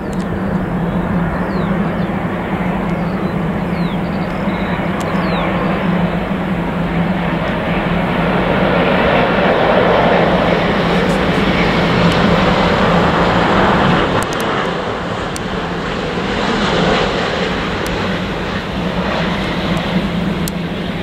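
Airbus A350 on final approach with gear down, its Rolls-Royce Trent XWB jet engines making a steady roar that swells as the aircraft passes close by, loudest about ten to fourteen seconds in, then eases off as it moves away.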